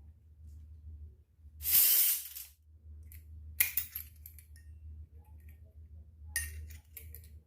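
Small miniature toy kitchen pieces being handled. There is a brief hissing rustle, then two clusters of light clicks and clinks, over a low steady hum.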